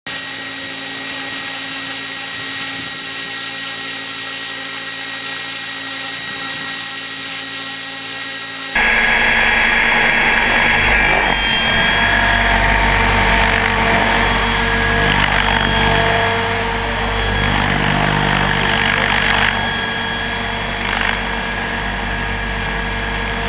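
Maxi Joker radio-controlled model helicopter in flight: a steady whine of motor and rotor made of several held tones. About nine seconds in it becomes much louder and fuller as the helicopter flies close overhead.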